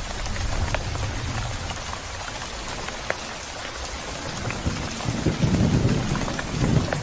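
Steady rain falling, with scattered individual drops ticking. A low thunder rumble dies away in the first second or so, and another rolls in about five seconds in.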